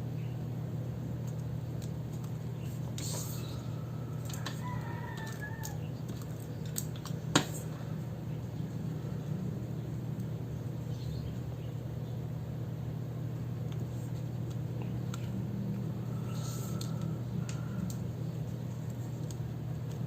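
A distant bird calling twice, once about four to six seconds in and again near the end, over a steady low hum. There is one sharp tap about seven seconds in.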